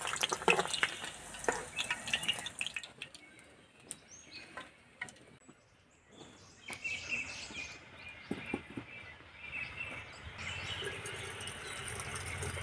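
Paneer cubes frying in hot oil, crackling and sizzling for the first few seconds before it stops. From about ten seconds in, water is poured from a jug into an aluminium pressure cooker in a steady splashing pour.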